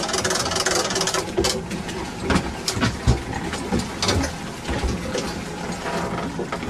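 A 115-horsepower outboard motor idling steadily, with a few dull knocks over it, the loudest about three seconds in.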